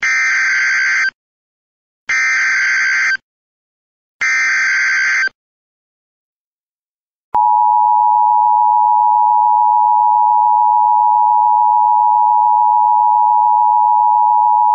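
Emergency Alert System alert opening: three identical one-second bursts of SAME header data warble, about a second apart, then a short gap and the steady two-tone EAS attention signal, which runs about eight seconds. Together they announce an incoming emergency broadcast message.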